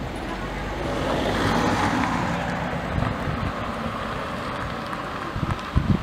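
Outdoor background noise that swells about a second in and slowly eases off, with a few low thumps near the end.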